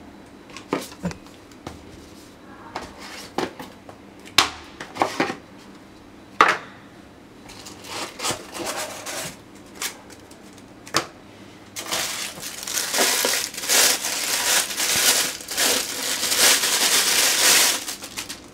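Unboxing sounds: scattered knocks, taps and rustles of cardboard and foam packing being handled. About twelve seconds in, a long stretch of plastic wrap crinkling as it is pulled off a lens hood.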